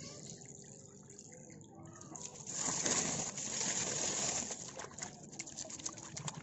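Water from a garden hose splashing onto soaked koi-pond filter wool as hands squeeze and rinse it. The rush of water grows loud about two and a half seconds in, then gives way to scattered splashes and drips.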